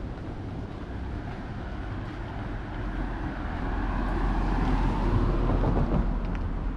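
A road vehicle passing by, its noise swelling to a peak about five seconds in and then fading, over a steady low rumble.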